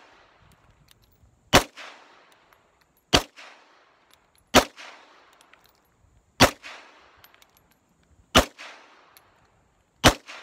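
Six shots from a Springfield Armory 1911 Mil-Spec .45 ACP pistol firing Tula steel-case ammunition, fired at a slow, even pace of about one every one and a half to two seconds. Each sharp report is followed by a short echo trail. The pistol cycles the steel-case rounds without a stoppage.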